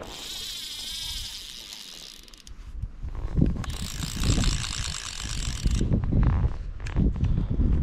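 Fly reel's ratchet clicking rapidly in two long bursts while a hooked rainbow trout is played on a bent fly rod. Wind buffets the microphone with a low rumble in the second half.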